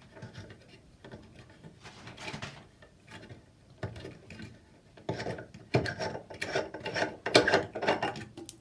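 Faucet aerator being unscrewed by hand: irregular scraping and clicking as it turns on its threads, growing louder and busier about halfway through.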